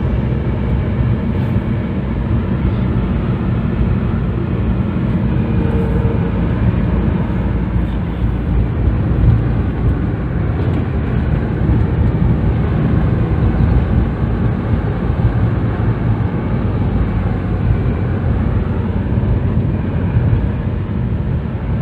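Steady road and engine noise of a car cruising on a paved highway, heard from inside the cabin.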